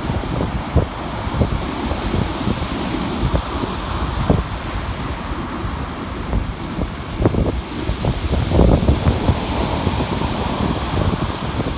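Wind buffeting the microphone in irregular low gusts, over a steady rushing noise.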